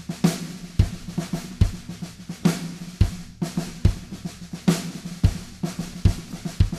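Music: a drum kit playing a steady beat on its own, with strong kick and snare hits a bit under a second apart over a low sustained tone.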